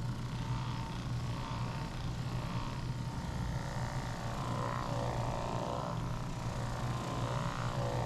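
Handheld percussion massage gun running with a steady low buzz.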